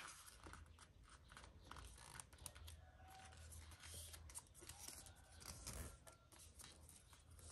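Faint rustling and crinkling of squared notebook paper as a paper airplane's side flap is folded and the crease pressed flat by hand, in scattered soft clicks.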